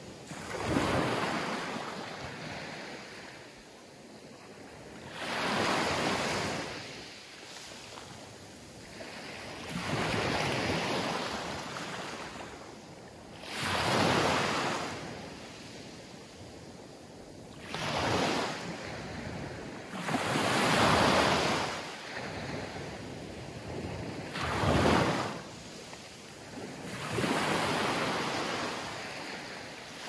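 Small Mediterranean waves breaking and washing up a coarse-sand and pebble beach, in about eight rolling surges, one every three to four seconds.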